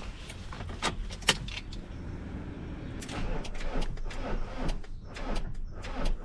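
Keys jangling at a van's ignition, two sharp clicks about a second in, then a quick run of clicks and rattles as the key is worked, on a van that will not start; the owner puts it down to the starter motor or the battery.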